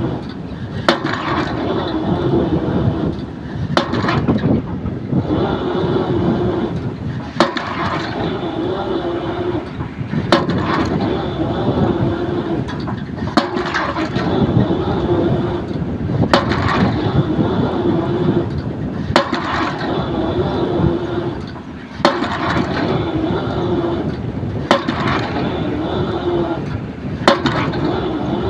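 Excavator drop hammer striking a concrete pile about every three seconds, each blow a sharp single bang, over the excavator's diesel engine running steadily.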